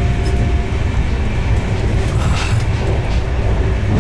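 Steady low running rumble inside a Gatimaan Express passenger coach travelling at speed on the rails.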